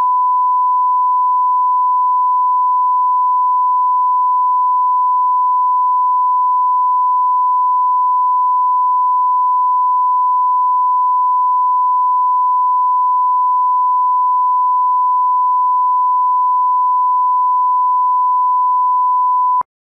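Bars-and-tone line-up signal: a standard 1 kHz reference test tone, one steady pure beep held unbroken and cut off abruptly near the end.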